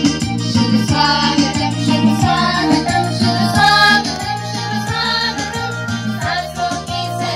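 Group of schoolgirls singing a welcome song together, over music with a steady beat of about two strokes a second.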